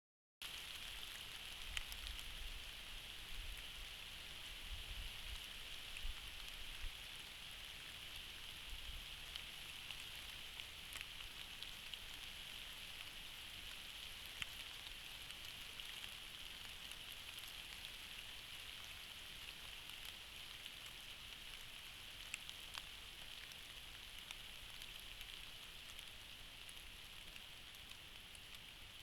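Steady heavy rain falling, with scattered sharper drop hits, picked up by a trail camera's microphone.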